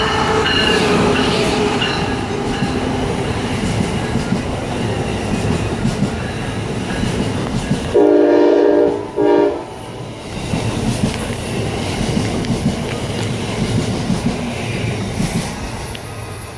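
Amtrak ACS-64 electric locomotive and its coaches passing at speed, with steady rumble and clatter from the wheels on the rails. The horn trails off in the first second or so and sounds again about eight seconds in, a long blast and then a short one.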